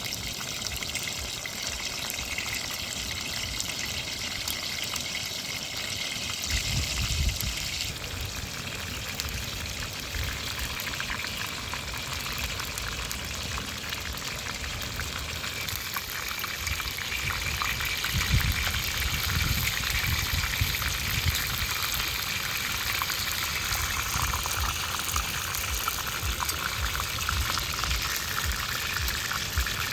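Fish frying in oil in a pan: a steady sizzle full of fine crackles. There are a few low knocks about seven seconds in and again about eighteen seconds in.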